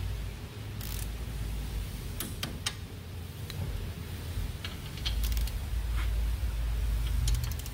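Hand tools clinking: scattered sharp metallic clicks from a wrench and socket being fitted, turned and moved between suspension nuts, with a quick run of clicks near the end, over a low steady hum.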